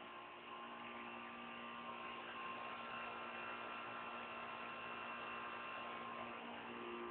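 Faint steady hum made up of several held tones over a low hiss, with nothing else standing out.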